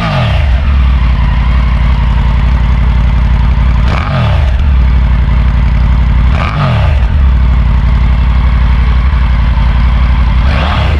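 Triumph Tiger 900 Rally Pro's three-cylinder engine idling through its single big silencer, blipped on the throttle about four seconds in, again a couple of seconds later and once more near the end; each rev rises sharply and drops quickly back to idle.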